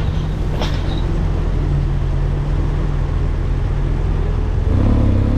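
Adventure motorcycle's engine running steadily at low speed as the bike rolls slowly along a footpath, with road noise around it.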